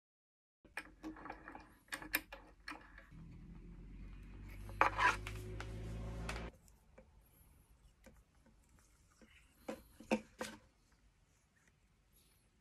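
Hacksaw scraping through a plastic water spigot in a few short strokes, then a small power-tool motor runs for about three and a half seconds, slowly getting louder, as the spigot's bore is enlarged. A few sharp plastic clicks follow about ten seconds in.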